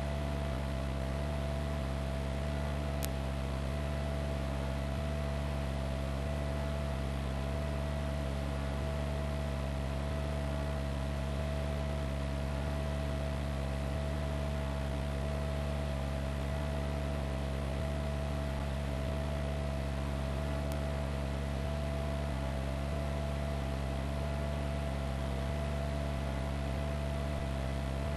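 Steady drone of a news helicopter heard from the aircraft, with a low hum, a constant mid-pitched whine and even hiss.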